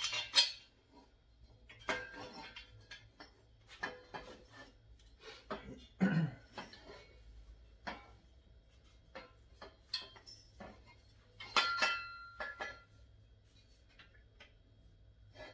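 Metal parts of a table saw's leg stand clinking and knocking as bolts and hex nuts are fitted by hand: scattered clicks and clanks, with one short ringing clank about three-quarters of the way through.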